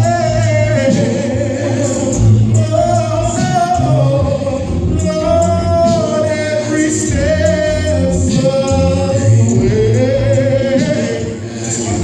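Gospel song: voices singing long, wavering held notes over a steady low accompaniment.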